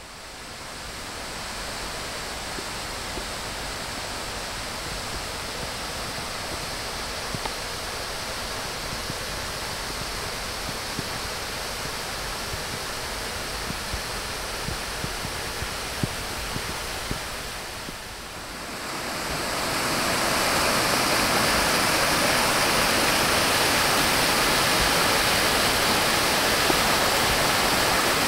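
Waterfall and cascades on a mountain creek swollen by heavy rain, water rushing steadily over rock. The rush dips briefly and then grows louder from about twenty seconds in.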